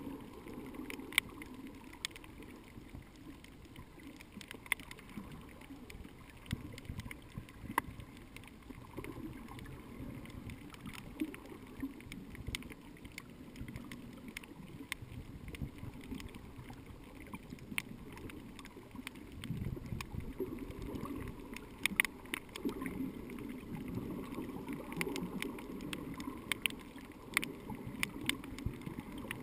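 Muffled underwater noise heard through a GoPro Hero 2's waterproof housing: a low, steady rush of moving water with scattered sharp clicks throughout.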